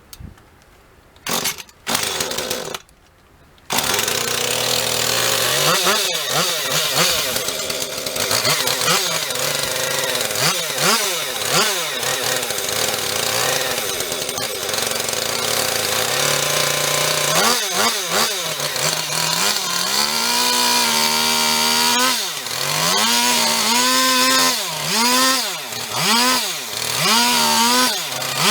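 Husqvarna 450 Rancher two-stroke chainsaw firing briefly twice, then catching about four seconds in and running. Its engine speed drops and climbs back again and again, most often in the second half.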